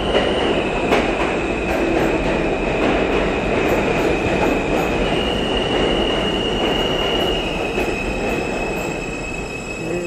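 New York City subway F train pulling into an underground station platform: a loud, steady rumble of wheels on rail under a high, sustained wheel squeal. The squeal shifts pitch twice as the train slows, and the rumble eases slightly near the end.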